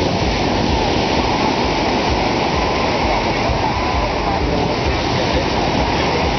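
Ocean surf breaking and washing onto the beach, a steady loud rush, with wind buffeting the microphone.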